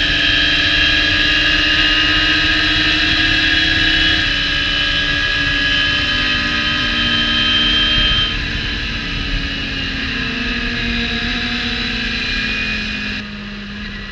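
Onboard sound of a Radical SR3 race car's engine running at high revs under wind rush, from two laps played together. The engine pitch sinks over the middle seconds as the car slows for a corner. Near the end one of the two engine sounds cuts off suddenly, leaving a single, quieter engine.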